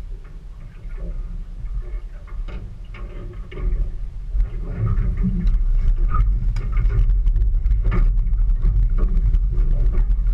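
Small hooked shark thrashing and splashing at the boat's side while it is being gaffed, with sharp splashes and knocks mostly in the second half. Under it a steady low rumble swells about four seconds in and stays loud.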